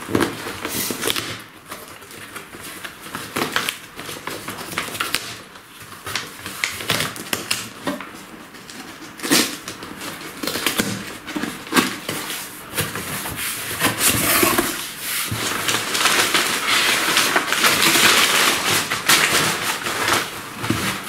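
A cardboard shipping box being opened by hand: packing tape picked at and peeled off with crackling and tearing, and the cardboard flaps scraping and rustling. A longer, denser stretch of tearing and rasping comes in the second half.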